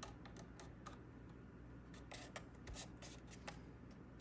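Faint, scattered small clicks and rustles of an adhesive wrap being handled and pressed onto a plastic charger case, with a small cluster about two seconds in. A steady low hum sits under them.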